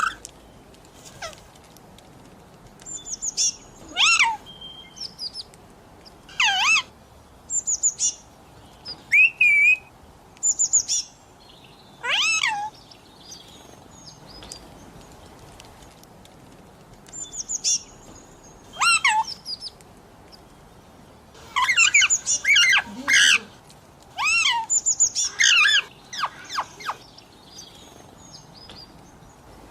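Pet parrot calling in short high-pitched bursts and chirps, many calls sliding down in pitch, with gaps of a few seconds between them and a dense run of calls about two-thirds of the way through.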